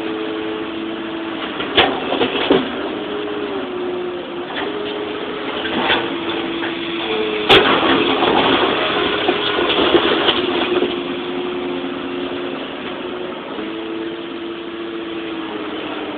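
Excavator engine and hydraulics running under load, heard from inside the cab, the pitch dipping and rising as the boom and bucket work. Knocks and clatters of rubble and the steel bucket, with one sharp bang about seven and a half seconds in as the bucket strikes the ground and debris.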